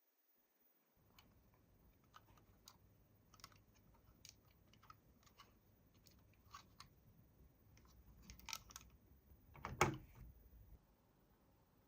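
Scattered light clicks and taps of small plastic toys and packaging being handled, with one louder knock about ten seconds in.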